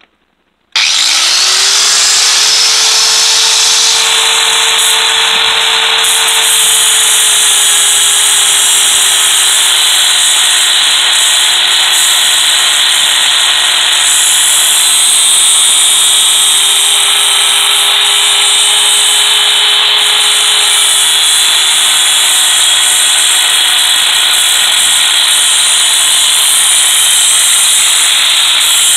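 Corded angle grinder switched on about a second in, its motor whine rising quickly to speed, then running steadily while the abrasive disc grinds through a steel ratchet handle, a harsh metal-grinding hiss over the whine.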